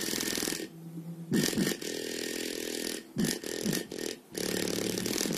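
Bass shaker driven by music, thumping out the bass in a string of buzzing bursts of about half a second to a second, with short quiet gaps between them.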